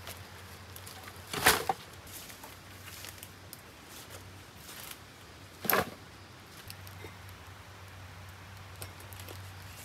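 Two loud crashes of dry branches, about four seconds apart, over faint rustling.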